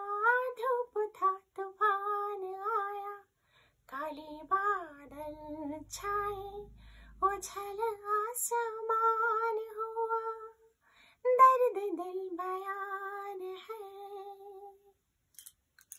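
A woman singing a Hindi song unaccompanied, in phrases of long held notes with short pauses between them. The singing stops about a second before the end.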